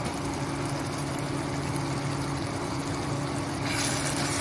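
Induction cooktop humming steadily under a pan of watery curry simmering and steaming. A louder hiss comes in about three and a half seconds in.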